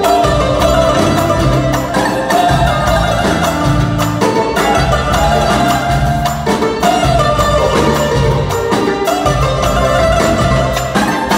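Live raï band playing an instrumental passage: violins carry the melody over keyboard, a drum kit and hand drums keeping a steady beat.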